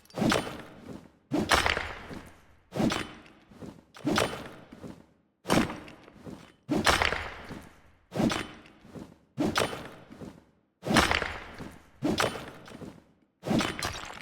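Forging hammer blows struck at a steady pace, about eleven heavy strikes, each dying away over about a second.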